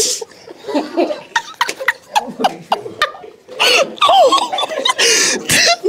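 Several people trying to hold back laughter: muffled giggles and snickers that grow louder about three and a half seconds in.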